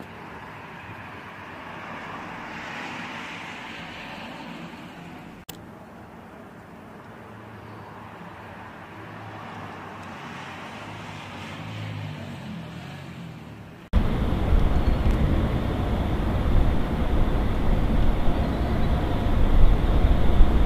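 A police patrol car's engine passes slowly over quiet street ambience, a low hum that swells and fades near the middle, with no siren. About two-thirds in, a much louder steady rumbling noise cuts in suddenly and covers everything.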